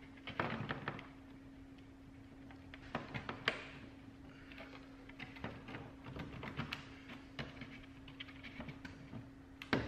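Plastic lower fog light grill of an Audi TTS Mk2 being tugged and wiggled by hand in the bumper, its clips giving scattered light plastic clicks and ticks, the sharpest about three and a half seconds in. A faint steady hum runs underneath.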